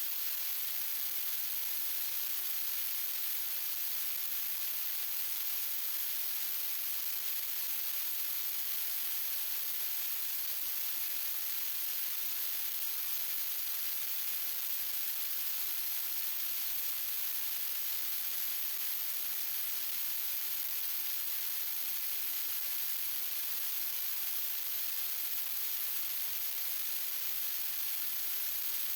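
Steady, unchanging static hiss, brightest at the top of the range, with no tool sound or other event in it.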